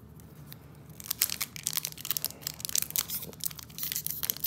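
Foil Pokémon booster pack wrapper crinkling and crackling as it is handled. The irregular crackle starts about a second in.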